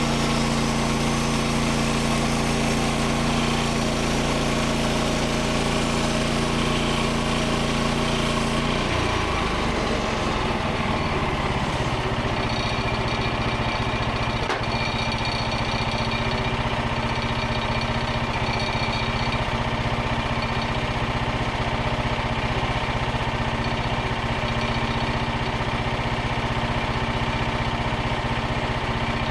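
Petrol engine of a Frontier OS27 portable bandsaw mill running steadily while milling ash. About nine seconds in its note drops and settles at a lower pitch, with a thin high whine over it for the rest of the time.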